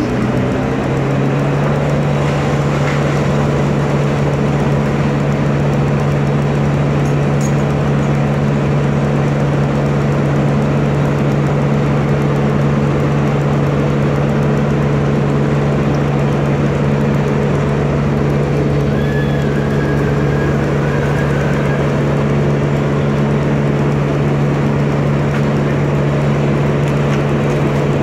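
An engine running steadily at high, constant speed, its hum holding one pitch without a break.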